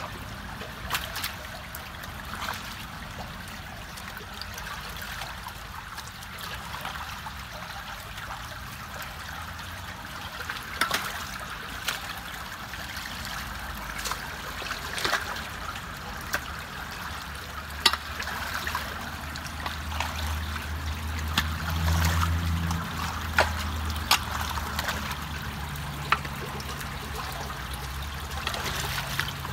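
Water trickling and rippling steadily out of a culvert partly blocked by a beaver dam of sticks and mud, with scattered small clicks and splashes. A low hum joins in the second half.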